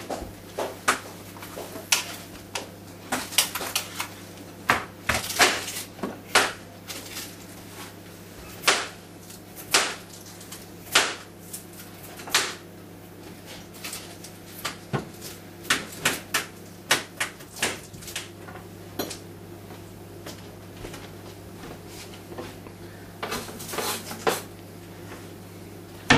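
Irregular clicks, taps and short scrapes of a metal utensil against a tin can and a plate as food is scooped out and worked, a few at a time with pauses between, over a low steady hum.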